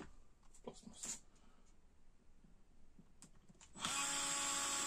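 A few light clicks of handling, then about four seconds in a small handheld electric drill starts up and runs steadily with an even whine, its thin bit boring a larger hole into the blender's plastic base.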